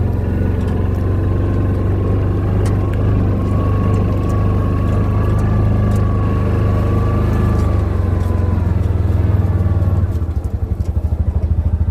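Vehicle engine running steadily while driving, a low drone with a high whine over it; about ten seconds in it drops to a slower, pulsing run as the vehicle comes to a stop.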